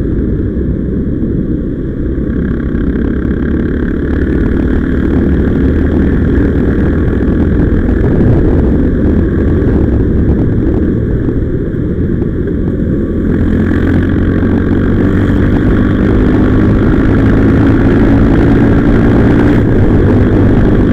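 Motorcycle engine running on the move, with a dense low rumble of wind and road noise. In the second half the engine note climbs gradually as the bike speeds up.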